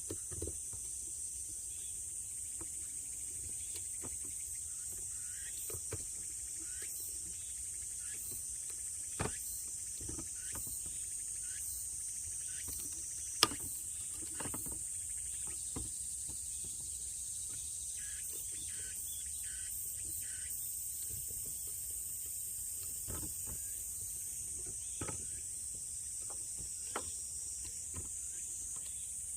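A steady, high-pitched chorus of grass insects such as crickets, with scattered faint clicks and one sharp click about halfway through.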